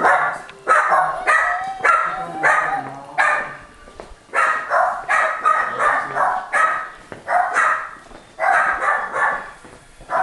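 Dogs barking in quick, sharp barks, about two a second, with a couple of short pauses.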